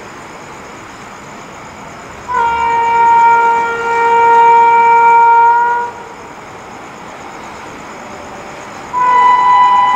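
Electric locomotive's air horn sounding as the train approaches. One long blast of about three and a half seconds is followed, near the end, by a second, higher two-note blast.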